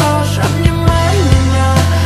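Slowed-down, reverb-heavy pop song: deep sustained bass and sharp drum hits under a melody.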